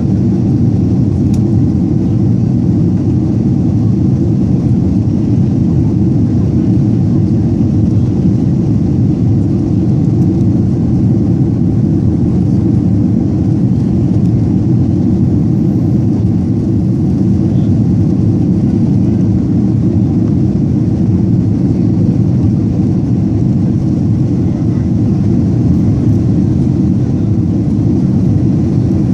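Airliner cabin noise in flight: a steady low rumble of jet engines and rushing air, unchanging throughout.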